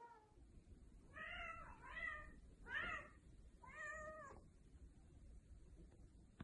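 A domestic cat meowing four times in quick succession, each short call rising and falling in pitch.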